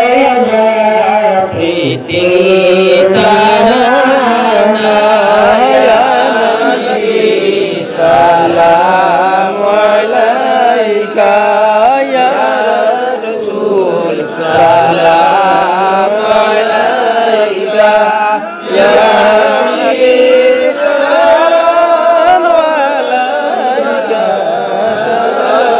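A boy singing the devotional salam of a milad, a chanted Islamic praise song, into a handheld microphone, with a man's voice joining at the microphone at times.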